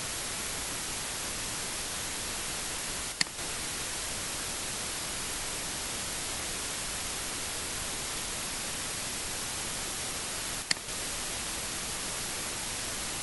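Steady static hiss with two short, sharp clicks, one about three seconds in and one near eleven seconds in.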